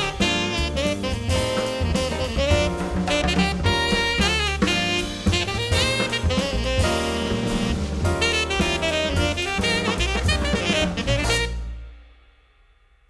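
Instrumental jazz music with saxophone and drums, fading out near the end.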